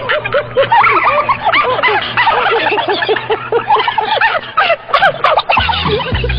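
A man laughing hard: a long string of rapid, high-pitched ha-ha-ha's. Music comes in about five and a half seconds in.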